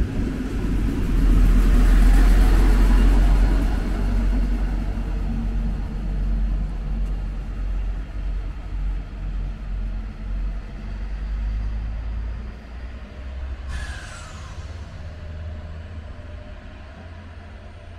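Class 643 (Bombardier Talent) diesel multiple unit pulling out. Its diesel engines run loud for the first few seconds, then the rumble fades steadily as the train moves away. A brief high sound, falling in pitch, cuts in about 14 seconds in.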